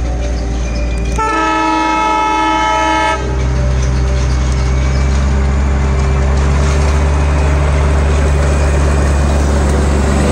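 Darjeeling Himalayan Railway narrow-gauge diesel locomotive passing close by. Its engine drones steadily, and its horn sounds once for about two seconds a second in. After the horn the engine gets louder as the locomotive draws near.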